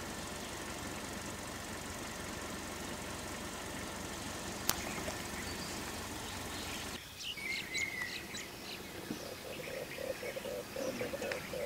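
A steady hiss of background noise, then after about seven seconds forest birds chirping and calling, with a fast run of low repeated notes.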